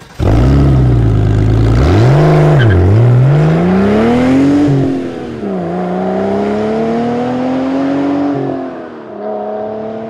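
Car engine revving up and down several times, starting suddenly: each rise in pitch is slow and each drop is quick, and it settles to a steadier, lower hum near the end.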